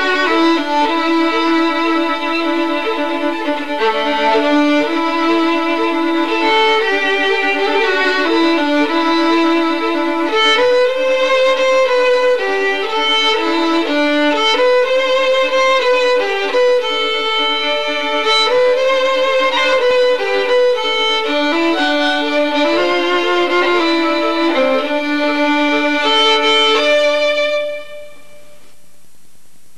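Instrumental background music: a melody of held, pitched notes, dropping away sharply near the end.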